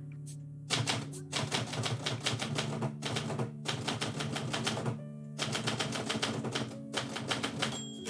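Manual typewriter keys striking in rapid runs of typing, starting just under a second in with a brief pause about five seconds in. Background music with steady low tones plays underneath.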